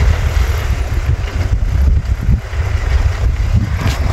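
Farm tractor's engine running steadily under load as it pulls a ridging implement through dry soil, with wind buffeting the microphone.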